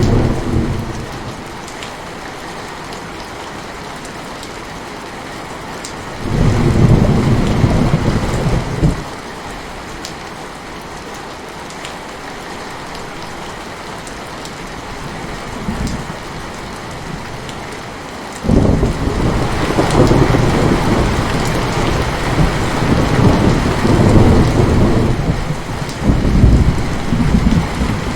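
Heavy rain falling steadily, with deep rumbles of thunder: one fading away at the start, another about six seconds in lasting a few seconds, and a long rolling one from about two-thirds of the way through that runs on to the end.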